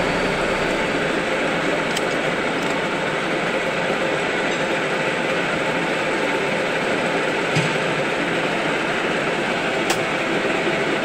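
16K20 screw-cutting lathe running: a steady mechanical whir from the machine, with a few short clicks.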